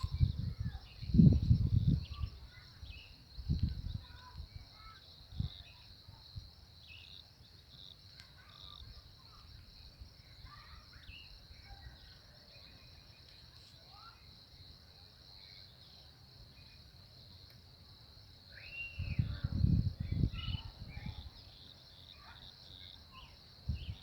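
Steady, high-pitched chorus of insects, with scattered short bird chirps over it. Low rumbling bursts come in the first couple of seconds and again about 19 seconds in.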